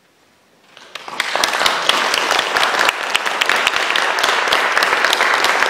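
Concert audience applauding: the applause starts about a second in out of near silence, swells within half a second, and then holds as dense, steady clapping.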